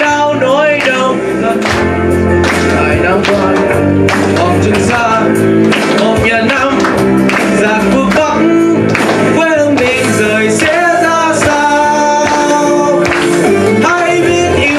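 A teenage boy singing a Vietnamese song into a handheld microphone over instrumental backing music, amplified through a sound system.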